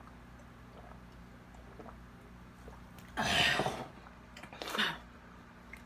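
A person coughs twice after gulping ginger ale: a longer, harsh cough about three seconds in and a short one about a second later. The cough is the kind set off by the fizz of the carbonated drink, which he says hurt to chug.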